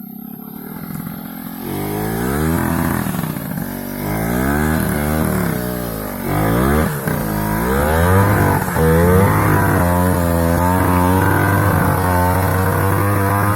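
Trail motorcycle engine revving, its pitch climbing and falling over and over from about two seconds in, then running at higher, wavering revs through the second half.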